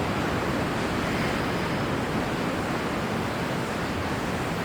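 Steady rushing noise of waves and wind, even throughout with no distinct events.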